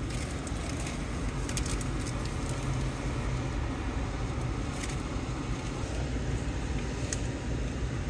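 Car running at low speed while creeping forward, heard from inside the cabin as a steady low engine and road rumble, with a few faint clicks.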